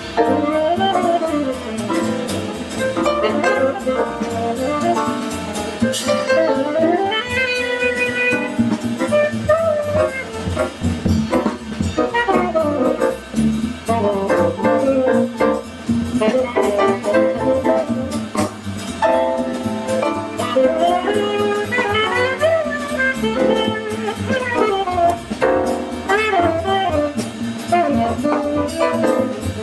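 Small jazz combo playing live: a tenor saxophone plays a flowing lead line over upright bass, drum kit and piano.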